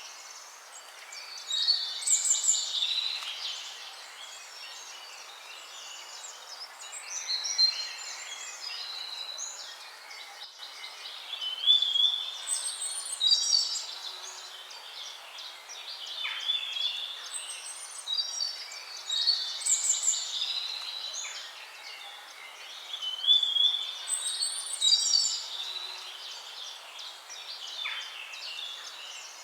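Songbirds singing, with bouts of song every few seconds over a steady hiss.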